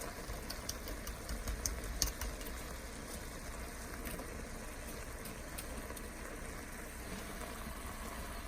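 Chicken and green beans cooking in oil and water in a pan on high heat: a steady sizzle with scattered pops and crackles, most of them in the first two seconds or so, over a low hum.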